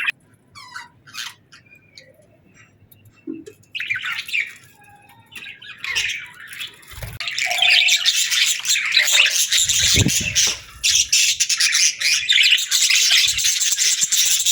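Budgerigars chirping and chattering: a few separate calls at first, then from about four seconds in many birds chattering at once in a dense, continuous flock chatter.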